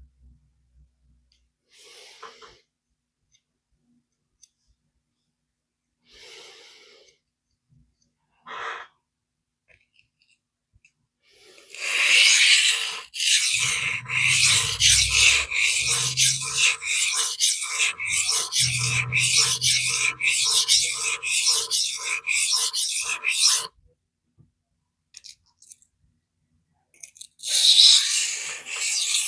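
AEB-L stainless knife edge stroked across a 400-grit vitrified diamond sharpening stone: a few faint scrapes, then a long run of scratchy rasping strokes at about two a second, which stops and starts again near the end.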